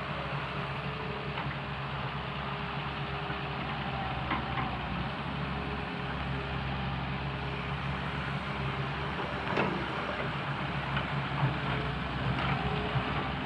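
Caterpillar excavator's diesel engine running steadily, with a few short knocks from the machine's work, more of them near the end.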